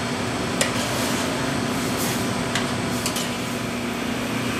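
Steady mechanical hum and rush of commercial kitchen equipment, with three faint sharp clicks spread through it.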